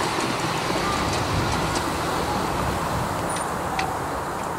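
Miniature railway train rolling away along the track, its wheels running on the rails in a steady rumble that fades gradually as it recedes, with a few faint clicks.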